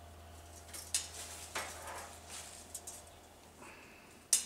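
A length of brake line being handled and bent by hand: scattered light clicks and scrapes of metal tubing, with one sharp click near the end.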